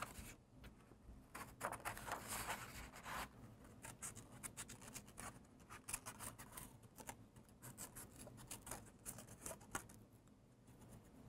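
Scissors snipping through black cardstock in a run of short, faint cuts while cutting out a small circle. The snipping thins out near the end.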